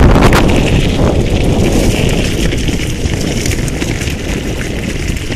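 Wind buffeting the microphone over the rumble and clatter of a bicycle riding along a trail, easing off slightly toward the end.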